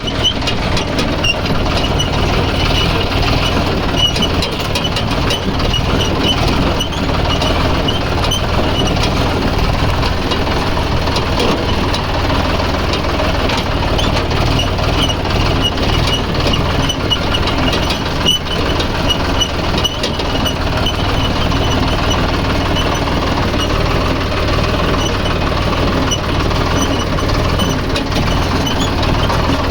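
An engine running steadily at idle, with a dense run of small ticks over its low, even sound.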